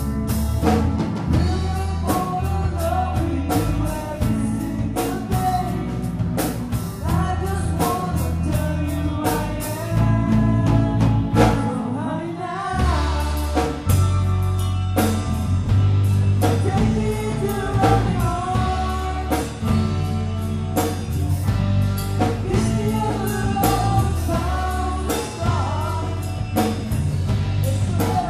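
A band playing a rock-style song: a singer over drum kit and bass, with a brief drop in the bass about halfway through.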